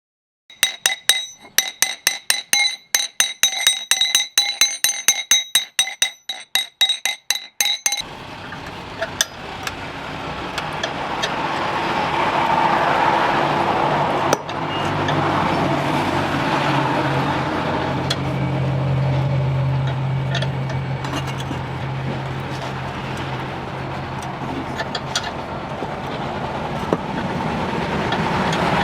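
A hammer strikes steel on an anvil at about four ringing blows a second. About eight seconds in the hammering stops, and a steady whirring machine noise with a low hum builds up and runs on.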